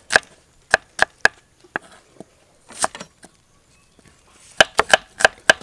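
Kitchen knife chopping red onions on a round wooden chopping block: single sharp knocks of the blade on the wood at uneven intervals, a pause of about a second and a half, then a quick run of strikes near the end.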